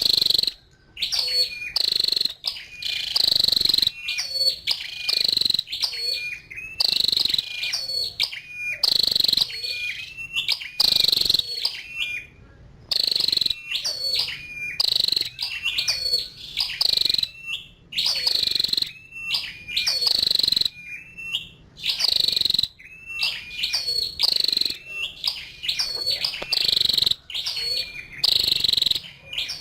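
Female flowerpecker calling over and over: short, high chipping notes in quick clusters, about two clusters a second, with a brief pause about twelve seconds in.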